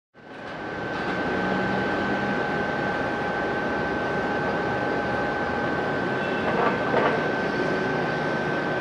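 Cessna 208B Grand Caravan's turboprop engine running on approach: a steady drone with a constant high whine, and a short louder swell about seven seconds in.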